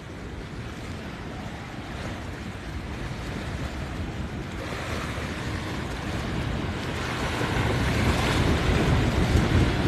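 Wind and surf: a steady rush of noise with wind buffeting the microphone, growing steadily louder.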